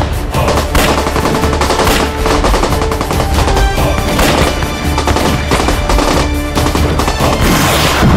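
Rapid rifle and machine-gun fire, many shots in quick succession, over a dramatic music score, with a loud blast near the end.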